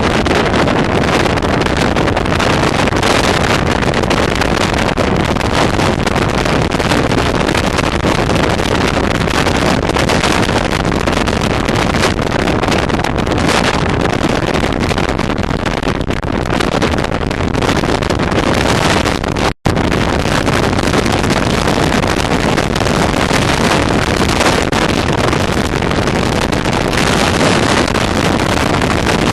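Waterfall rushing: a loud, steady roar of falling water that breaks off for an instant about twenty seconds in.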